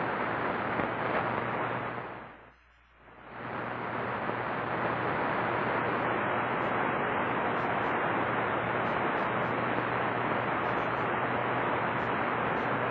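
Steady static hiss from the Yaesu FT-950 transceiver's speaker, tuned to CB channel 4 (27.005 MHz) with no voice on it. The static drops away for about a second near 2.5 s in, then comes back, with a faint low hum underneath.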